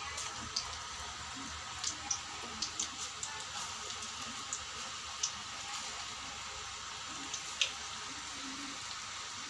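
Potato-onion pakora batter frying in hot oil in a karahi: a steady sizzle with scattered crackles and pops as clumps of gram-flour batter are dropped in by hand.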